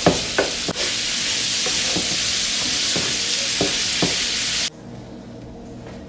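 Shrimp sizzling as they fry in butter and oil in a pan, with a few light taps of a utensil against the pan. The sizzle cuts off suddenly about four and a half seconds in.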